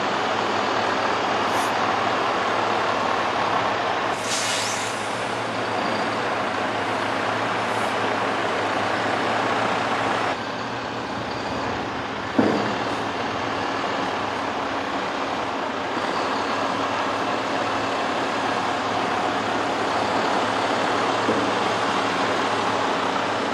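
Diesel engine of a MAN truck running steadily as the tractor unit creeps forward. A short hiss of air comes about four seconds in, and a single sharp thump about twelve seconds in.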